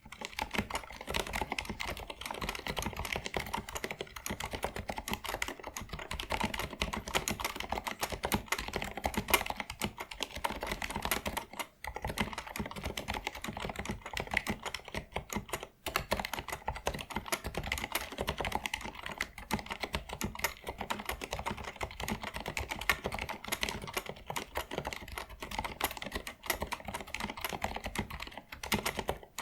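Continuous fast typing on a Leopold 980M mechanical keyboard with Cherry MX Silent Red linear switches, whose dampened switches give muffled keystrokes, with two brief pauses about twelve and sixteen seconds in.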